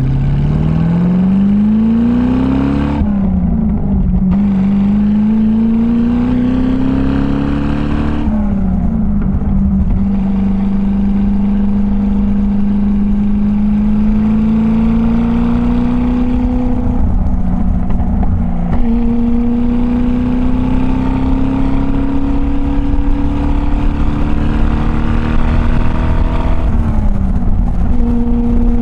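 1966 TVR Grantura's 3.5-litre V8 through its custom exhaust, heard from a camera on the car, accelerating up through the gears. The pitch climbs steeply and drops sharply at gear changes about three and eight seconds in. It then rises more slowly at moderate revs, eases off briefly in the middle, climbs again and drops at another shift near the end.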